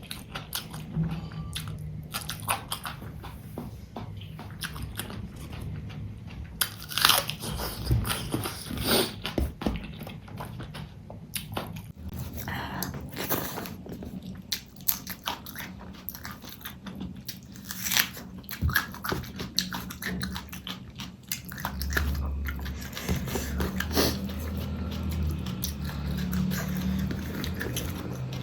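Close-miked eating: chewing and biting mouthfuls of fish curry and rice, with irregular crisp crunches. A low hum comes in about three-quarters of the way through.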